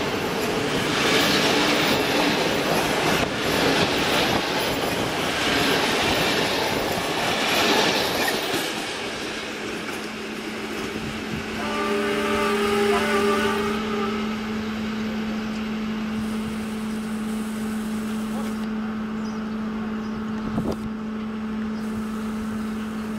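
A CFR passenger train of red coaches passing close by, its wheels clattering rhythmically over the rail joints, then fading as it pulls away after about eight seconds. About halfway through a horn sounds briefly, and a steady hum carries on to the end.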